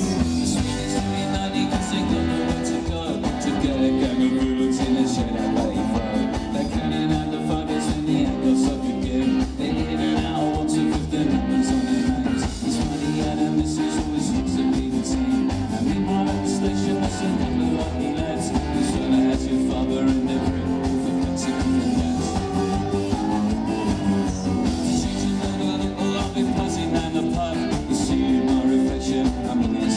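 Live rock band playing through a PA, heard from the audience: electric guitars, bass, drums and keyboards with a steady beat.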